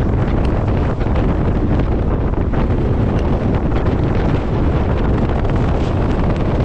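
Wind buffeting the microphone, held out of the open door of a moving passenger train, with the train's running noise underneath; a steady, heavy rush with no let-up.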